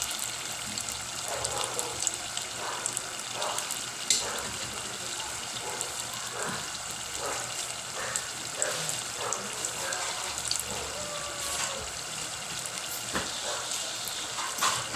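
Spring rolls deep-frying in hot oil in a stainless steel pot: a steady bubbling sizzle, with a few light clicks.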